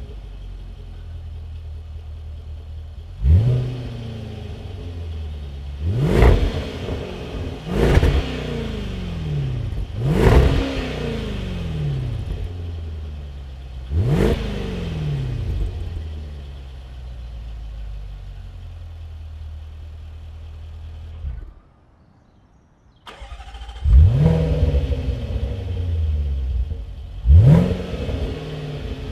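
Range Rover Velar SVAutobiography's supercharged 5.0-litre V8 idling through its quad exhaust, blipped about five times, each rev sweeping up and falling back to idle. Near the end it goes almost silent for about a second and a half, then comes back with a loud flare and another sharp rev.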